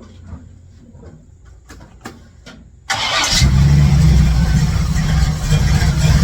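1967 Chevrolet C10's V8 starting about three seconds in: a brief crank, then it catches and keeps running loud and deep. This is its first start with the headers just refitted on new gaskets sealed with RTV. Before the start there are only a few faint clicks.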